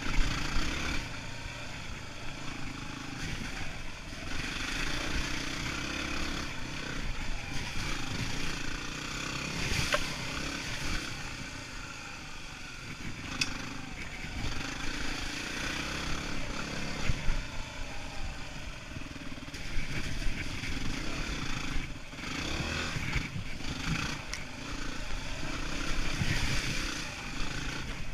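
Yamaha WR250R's single-cylinder four-stroke engine running as the bike is ridden along a dirt trail, the throttle rising and falling every few seconds, with occasional sharp knocks as it goes over rocks and roots.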